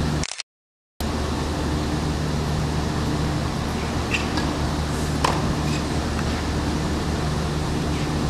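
Tennis ball struck by a racket during practice: a few sharp pops, the clearest about five seconds in, over a steady low hum and hiss. The sound cuts out completely for about half a second near the start.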